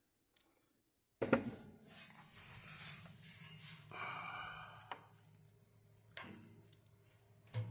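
Faint clicks and knocks from handling the controls of a 1960s Toastmaster 16-inch box fan, with a faint electric hum. Near the end there is a knock, and the fan motor starts, its hum growing as it spins up.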